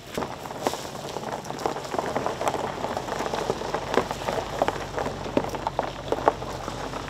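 Boat trailer's tyres rolling slowly over crushed gravel, a dense, irregular crackle and crunch of small stones.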